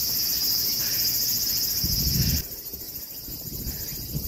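Insects shrilling loudly in a high, pulsing chorus of two voices. The lower-pitched one cuts off suddenly about two seconds in, leaving a fainter, higher shrill.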